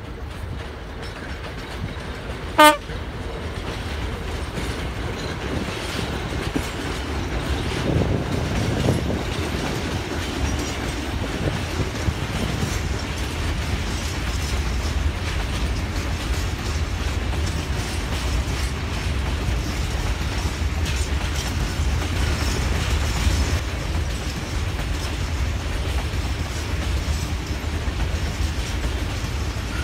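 A diesel freight locomotive gives one very short horn toot, then a long train of hopper wagons rolls past with a steady rumble of wheels on rails.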